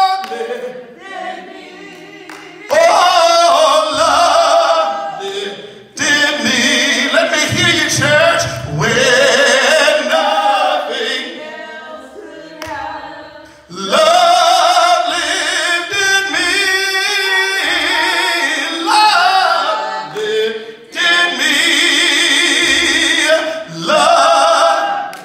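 A man singing a gospel hymn without accompaniment, in long drawn-out phrases with vibrato and short breaks between them.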